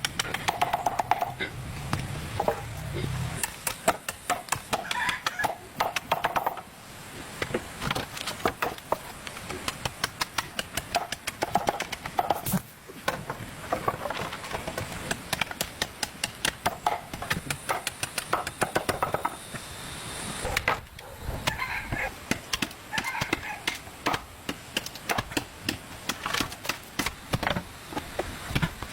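Rapid repeated knocks and taps, several a second, with short voices or clucking now and then.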